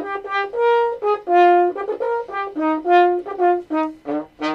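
Solo French horn playing a short melodic phrase of separate notes, some quick and repeated, some held longer.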